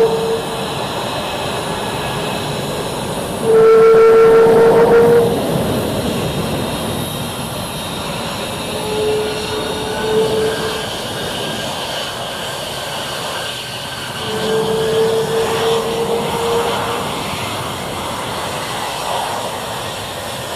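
F-22 Raptor's twin Pratt & Whitney F119 turbofan engines running at taxi power, a continuous loud jet rumble and whine. A steady droning tone rises out of it four times, loudest about four seconds in.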